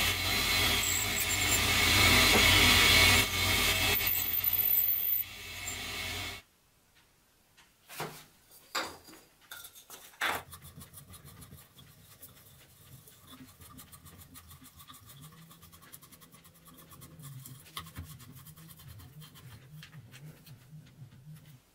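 A metal lathe runs loudly while a twist drill bores into a spinning metal part, then stops about six seconds in. A few sharp knocks follow, then quiet, rapid rubbing and ticking from hand-filing a metal bar clamped in a bench vise.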